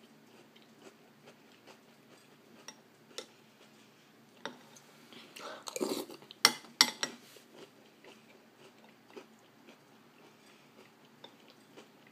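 A person chewing a mouthful of cereal and milk, with soft scattered crunches and clicks. About six seconds in comes a louder cluster of sharp clicks and rustling as the spoon goes to the mouth close to the microphone.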